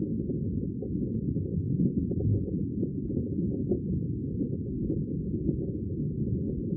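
Sea water making a steady, muffled low rumble, with a few faint ticks through it.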